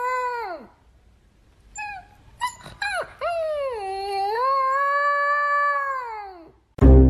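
A dog howling: a long howl that slides down and trails off, a few short yips, then a second long, held howl that falls away near the end.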